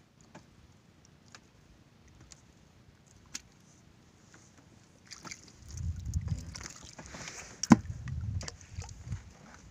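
Wet splashing and knocking as a freshly jigged squid is hauled into a small boat and dropped into a plastic bucket. A few faint ticks for the first half, then a busy, louder stretch from about halfway in, with one sharp knock near the end.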